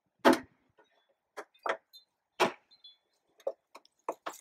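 The internal latch clamps that join two hull sections of a Pakayak Bluefin 14 kayak being engaged and latched by hand one after another: a series of about eight sharp clicks and knocks, the loudest near the start and about halfway through.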